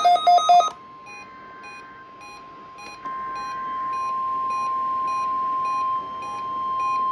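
A rapid run of electronic beeps cuts off within the first second. About three seconds in, the NOAA Weather Radio warning alarm, a single steady 1050 Hz tone, starts and holds. It marks the start of the weekly warning alarm test.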